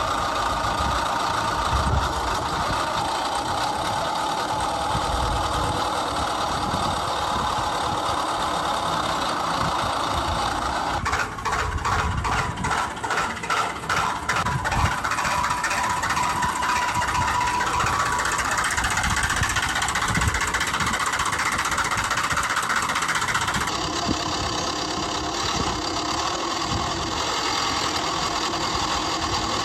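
A vehicle engine running with a heavy rumble. About eleven seconds in, it turns to a rapid pulsing for a few seconds. The sound shifts abruptly a few seconds before the end.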